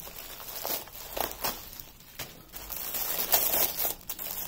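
Plastic bubble wrap and a bubble mailer crinkling as they are pulled open by hand from a tape-wrapped tube. The rustling comes in irregular bursts and grows louder in the second half.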